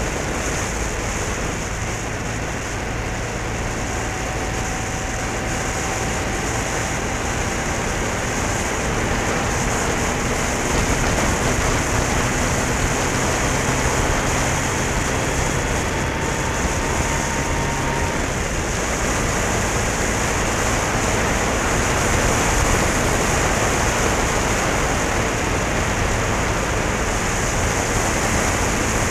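Steady rush of wind and road noise on a motorcycle-mounted action camera's microphone while riding at speed, with the motorcycle's engine faintly underneath. A faint whine climbs slowly through the first half and fades out about two-thirds of the way in.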